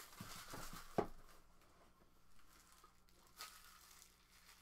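Hands handling things on a table: soft rustling and crinkling, with a sharp knock about a second in and a lighter one a little past three seconds.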